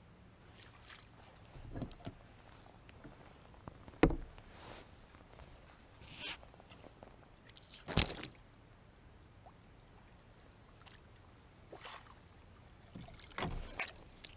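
A hooked squid splashing and squirting water at the surface beside a kayak, with a few sharp knocks and splashes. The loudest two come about four and eight seconds in.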